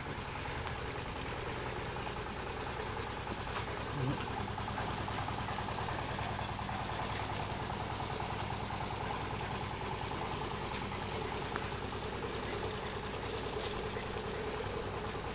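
A septic tanker's engine running steadily at constant speed, a continuous drone while the tank's sludge is discharged.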